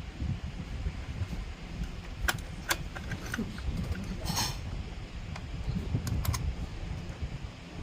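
Sharp metallic clicks and taps from small metal parts being handled, a couple about two seconds in and a quick cluster about six seconds in, with a brief scrape in between, over a low rumbling background.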